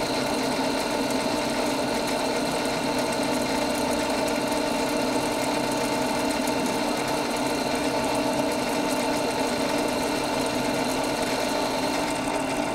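Centre lathe running at a steady speed while the cutting tool takes a turning pass along the workpiece to bring its diameter down to 34 mm: a constant machine hum with a high whine that drops out near the end.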